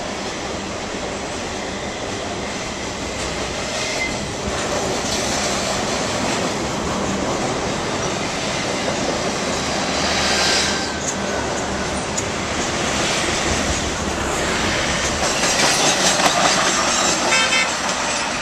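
Freight train's intermodal cars rolling along the rails below, a steady rumble and wheel noise as the last cars go by, swelling a little about two-thirds of the way in and again near the end, with a brief run of clicks near the end.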